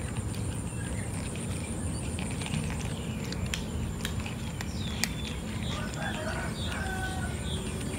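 A kitten crunching dry cat kibble, with scattered sharp crunches over a steady low background rumble.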